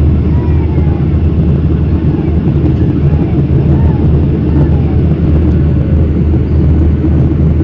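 Steady jet cabin noise of a Boeing 737 airliner in flight, heard from a window seat: a loud, even, deep rumble of engines and airflow that does not change.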